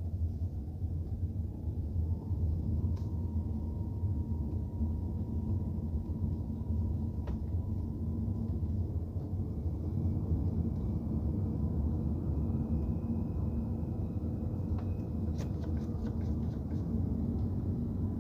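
A car's steady low road and engine rumble while driving, heard from inside the car. A faint whine rises over the first couple of seconds, and a quick run of light ticks comes about three-quarters of the way through.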